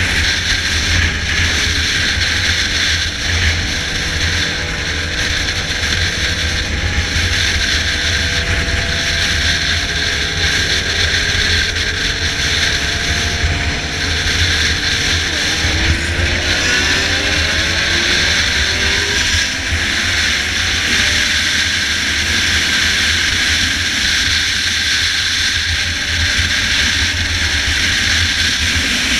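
Yamaha XJ6 motorcycle's inline-four engine with a 4-into-1 aftermarket exhaust, running under way with a steady rush of wind. About two-thirds of the way through, the engine note climbs as the revs rise.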